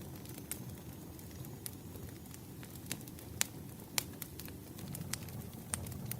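Firewood burning: a steady low rumble with sharp, irregular crackles and pops, the loudest two a little past the middle.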